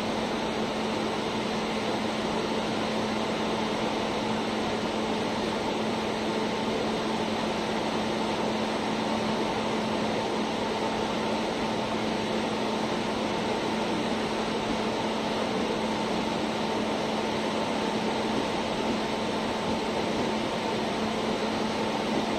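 Passenger coaches of a departing Indian Railways express rolling slowly past: a steady rumble and hiss of steel wheels on the rails, with a steady low hum running through it.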